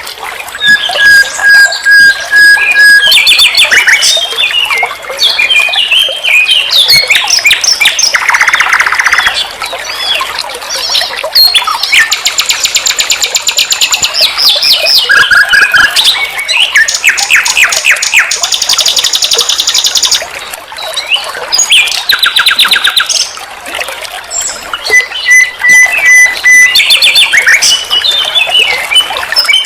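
Nightingale singing a continuous, varied song: loud, level whistled notes, rapid rattling runs of repeated notes and quick trills, one phrase after another with short pauses between.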